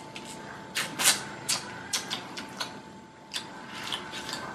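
Person biting and chewing a frozen ice pop: a string of short, sharp crunches and mouth clicks at irregular intervals, with a faint steady hum underneath.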